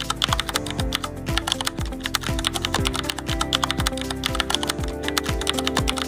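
Rapid, continuous keyboard-typing clicks, a typewriter-style text sound effect, over background music with a low beat about twice a second.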